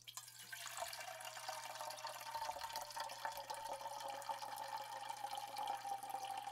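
Milk pouring in a steady stream from a jug into a tall glass, faint. The pitch of the filling glass rises a little over the first couple of seconds, then holds as the glass nears full.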